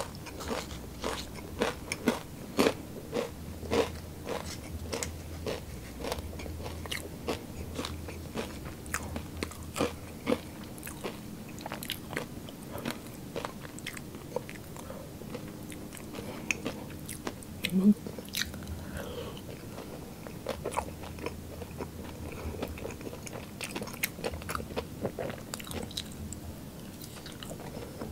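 Close-miked chewing and crunching of fried street food: crisp bites and wet mouth clicks, thickest in the first dozen seconds, with one louder mouth sound about eighteen seconds in.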